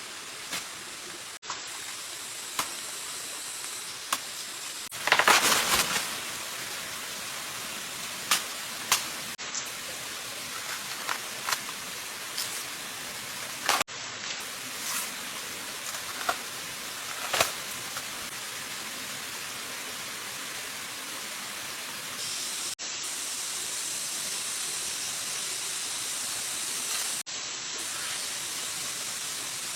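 Steady hiss of running water, with scattered sharp clicks and knocks and a louder rustling burst about five seconds in.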